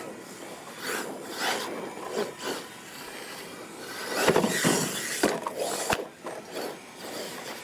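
Radio-controlled monster truck driving on a dirt track, its tyres scrabbling and scraping over the dirt in uneven bursts, with a few sharp knocks in the second half.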